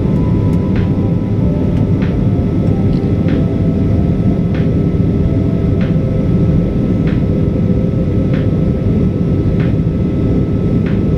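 Cabin noise of a Boeing 737-800 on approach, heard at a window seat over the wing: a steady low rushing roar of airflow and its CFM56 jet engines, with faint light ticks about every second and a half.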